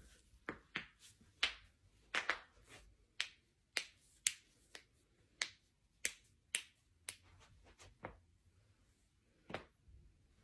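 A quick, irregular series of sharp joint cracks, about fifteen in all: the pops of spinal joints giving way during back and neck cracking.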